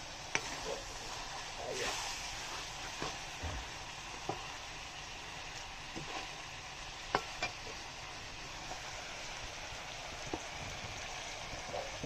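Chicken frying in an iron wok over a wood fire: a steady sizzling hiss, with a scattering of short sharp clicks.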